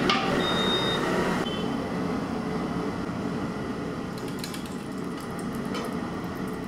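A metallic knock as a large aluminium kadai is set down on the stove, then a steady rushing noise from the stove heating the pan with a little oil in it, with a few faint crackles a little past the middle.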